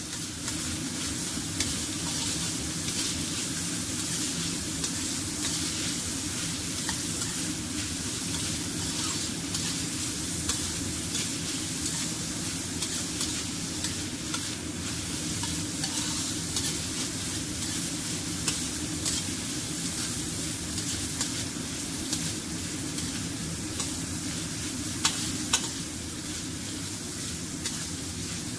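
Carrots, wood ear mushroom and meatball slices sizzling in oil in a stainless steel wok while a metal spatula stirs and scrapes them, with frequent light clinks of the spatula on the wok. Two louder clinks come close together near the end.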